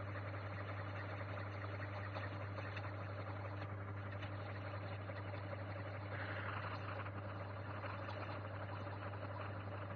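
Small benchtop metal lathe running steadily with a constant hum, a glass test tube turning in its chuck as it is cut. A harsher hiss swells briefly about six seconds in.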